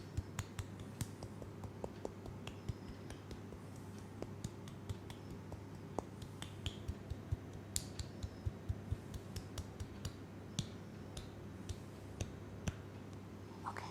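An irregular run of sharp clicks and taps close to the microphone, a few each second, some much louder than others, made by hand as ASMR triggers, over a steady low hum.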